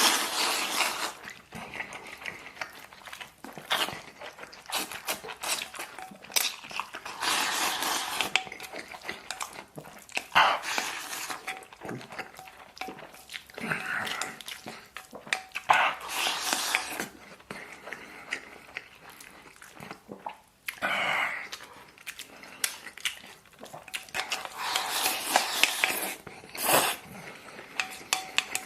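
Close-up eating sounds: a man chewing and biting big mouthfuls of braised beef and rice, in irregular noisy bursts with sharp clicks scattered throughout.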